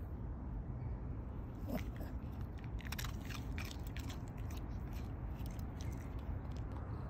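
Small poodle crunching a hard biscuit treat: a run of crisp crunches, thickest about three to four and a half seconds in, over a steady low rumble.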